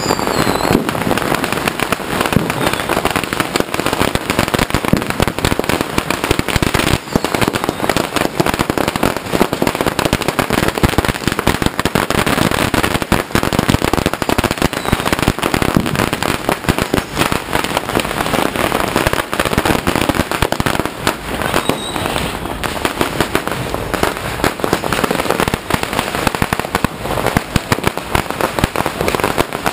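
Firecrackers going off in rapid succession: a dense, unbroken run of sharp bangs and pops.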